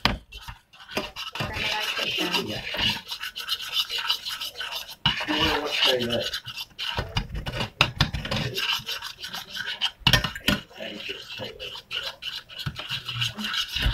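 Metal spoon stirring and scraping caramelizing sugar in a stainless steel saucepan, an irregular run of scrapes and light clinks against the pan.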